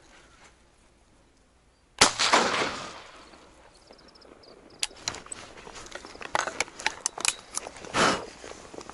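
A single shotgun shot about two seconds in, dying away over about a second. Scattered sharp clicks and a short rustle follow later.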